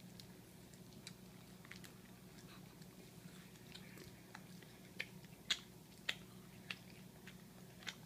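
A toddler chewing and smacking his lips on rotisserie chicken eaten with his fingers: soft wet mouth clicks, with a few sharper clicks in the second half, over a steady low hum.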